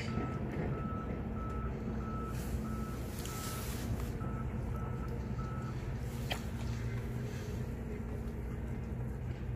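A vehicle's reversing alarm beeping at one steady pitch about twice a second, stopping about six seconds in, over a steady low hum of machinery. A single sharp tick comes just after the beeping ends.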